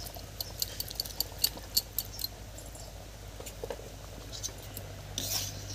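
Fried vegetables being tipped from a metal plate into a pot of simmering khichuri: a quick run of light clicks and taps over the first two seconds or so, then a few scattered ones, over a low steady hum.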